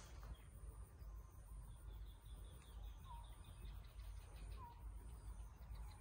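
Quiet outdoor background with a bird giving a faint short chirp twice, about a second and a half apart, and a brief run of faint high ticks near the middle.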